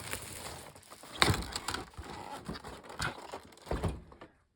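Plastic wrapping crinkling and crackling as it is pulled off a box, with scattered sharp crackles, the loudest about a second in. It dies away shortly before the end.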